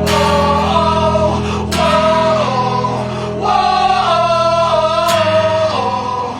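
Music: a rock song with sung vocals over guitar.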